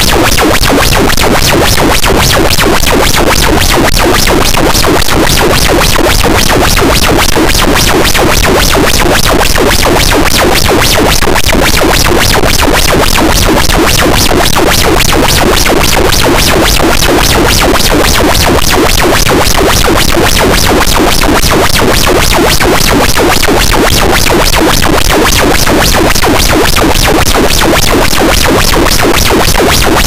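Harsh noise wall: a dense, unchanging wall of heavily distorted noise at full loudness, filling everything from deep bass to the highest treble, with a fast, even flutter running through it.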